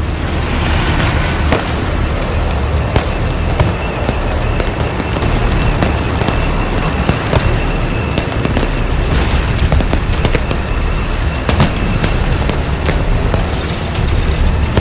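Fireworks going off: a continuous crackle broken by many sharp bangs and booms.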